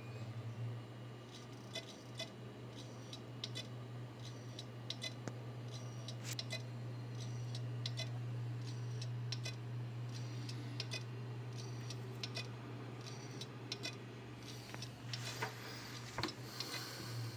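Seagate Barracuda ST2000DM001 2 TB hard drive clicking over a steady low hum: sharp clicks repeating in a regular pattern, about two a second, that break up into a few irregular knocks near the end. It is the clicking of a failing drive that no longer shows up in BIOS.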